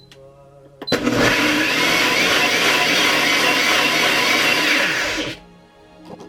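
Cuckoo countertop blender running, blending apple and water into juice. It starts about a second in, runs steadily for about four seconds, and cuts off sharply.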